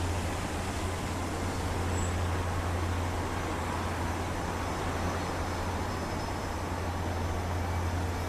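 Steady, distant rumble of a Boeing 737 MAX 8's CFM LEAP-1B jet engines at the start of its takeoff run, with a constant low hum underneath.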